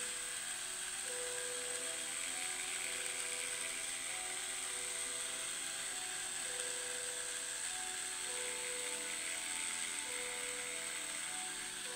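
Homemade transistor oscillator circuit and coil setup running: a steady high-pitched whine with a mechanical, ratchet-like buzz and lower tones that come and go every second or so.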